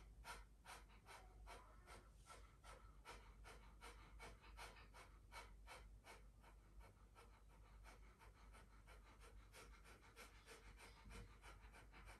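Kapalabhati breathing: a fast, even run of short, forceful exhalations, about three a second, each puff of air pressed out by a pump of the belly. Faint throughout.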